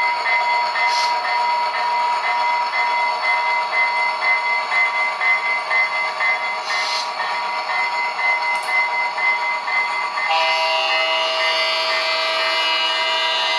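HO-scale F40PH-2D model's ESU LokSound decoder playing a diesel locomotive's engine running through its small speaker, with two short hisses of air. About ten seconds in a long multi-note horn blast starts and holds to the end.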